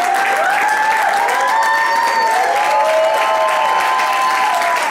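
Audience applauding, with several voices cheering in long overlapping whoops over the clapping.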